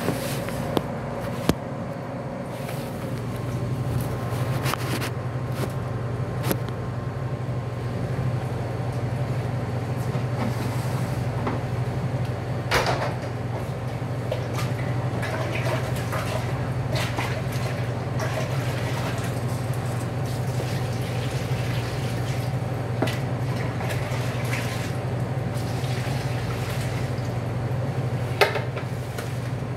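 Steady low machine hum, with scattered knocks and clatter of raw beef ribs and a plastic scoop being handled in stainless steel pans, the sharpest knock near the end.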